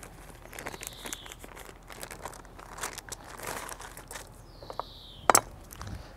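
Baking paper being folded and pressed around a bacon-wrapped roast beef, crinkling and rustling in short handling noises, with one sharp click a little after five seconds in.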